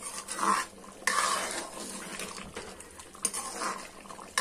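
Metal spoon stirring and scraping through thick, simmering mango-and-jaggery chutney in a metal pan, in a few uneven strokes.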